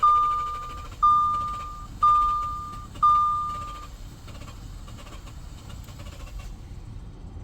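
2015 Audi Q7 dashboard warning chime sounding during a failed start: a clear single-tone gong about once a second, four times, each dying away, then it stops about four seconds in.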